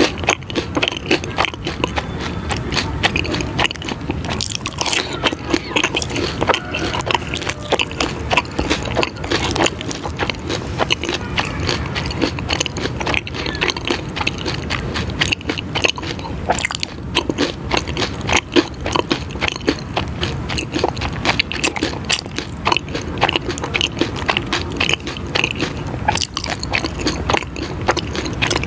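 Close-miked eating: dense, continuous crunching and crackling of food being bitten and chewed.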